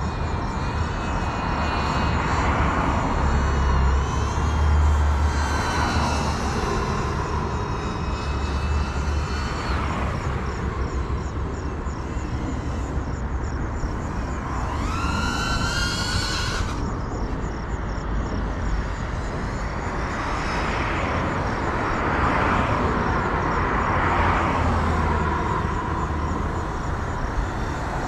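Ducted 3.5-inch cinewhoop (GEPRC Cinelog 35) in flight, its motors and propellers whining and changing pitch with throttle. About halfway through there is a sharp rising whine that cuts off suddenly.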